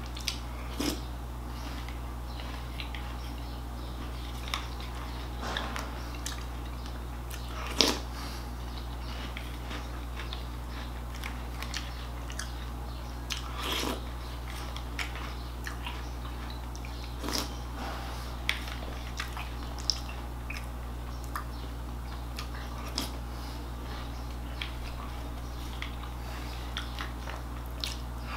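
A person crunching and chewing mouthfuls of Krave cereal close to the microphone, with scattered sharp crunches and clicks, the loudest about eight seconds in.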